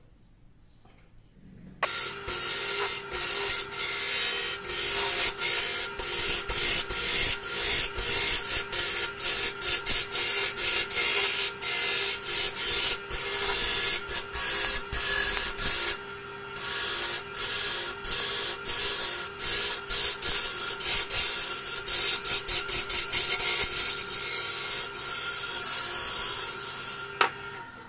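Wood lathe spinning a segmented bowl blank while a gouge cuts its face: a loud, steady hiss of wood being sheared, with the lathe's steady hum underneath. It starts about two seconds in and breaks off in many short gaps as the tool comes off the wood, with a longer pause about halfway through.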